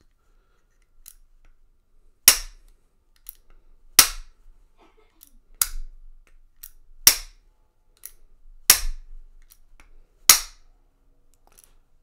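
A mallet striking a brass Master Lock M176 combination padlock held in the hand: six sharp knocks, evenly spaced about a second and a half apart. The lock is being rapped to jar it open.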